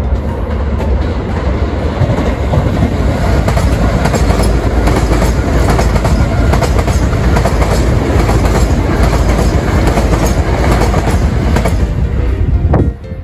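A Keio Electric Railway electric train running on the rails, a loud, steady rumble with repeated clicks of the wheels over the track. It cuts off abruptly near the end.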